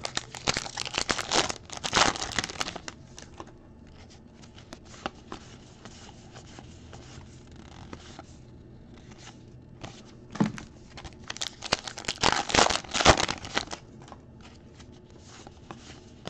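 Baseball card pack wrappers being torn open, in two bouts of tearing and crinkling about ten seconds apart. Quieter rustling and ticking of cards being slid and flipped through comes between the bouts.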